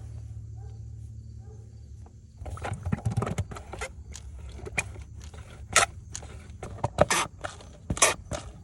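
Handling noise of someone working under a car: irregular rustling with sharp clicks and crackles, starting about two and a half seconds in and growing busier, over a low steady hum.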